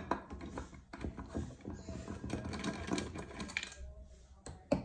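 Small clicks, rattles and scrapes of metal and plastic parts as an inverter's circuit board and terminal block are handled during disassembly, with a sharp click near the end.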